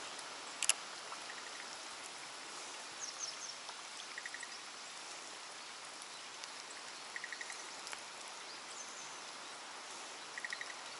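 Steady hiss of light rain, with a frog's short call of four or five quick pulses repeating about every three seconds. A sharp click sounds once near the start, and a few faint high chirps come and go.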